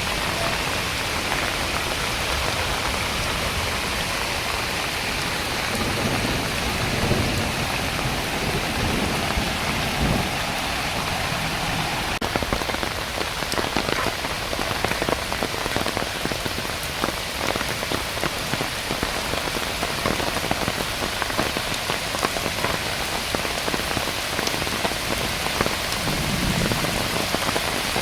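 Heavy rain falling steadily, with the sharp ticks of single drops striking close by growing frequent about halfway through.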